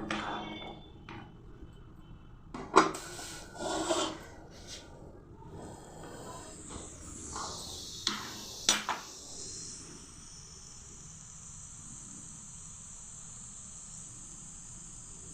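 Metal utensils knocking and clinking against a cooking pot a few times, loudest about three seconds in, followed by a steady high hiss that starts about halfway through.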